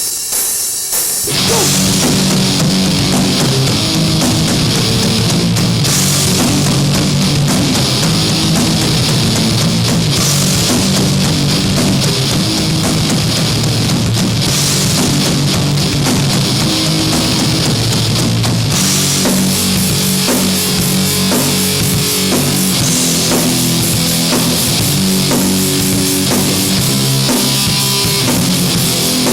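Loud heavy rock music with a drum kit and electric guitar, kicking in abruptly and playing on without a break.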